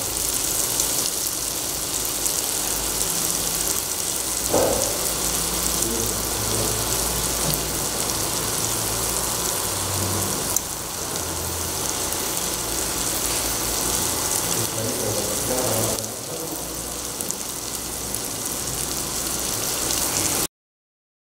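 Chopped shallots and tomatoes sizzling steadily in hot oil in a stainless steel pressure cooker pan as they sauté. The sizzle cuts off suddenly near the end.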